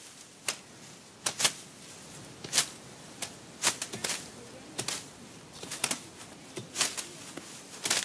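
Dry millet stalks being struck and cracked as a harvested field is cleared by hand: sharp, irregular cracks, sometimes two or three in quick succession, roughly two a second overall.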